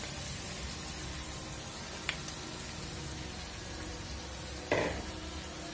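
Fried eggplant pieces tipped from a plastic bowl into a pan of fried spice paste, over a low steady hiss of frying. A light tick about two seconds in and a sharper knock near the end.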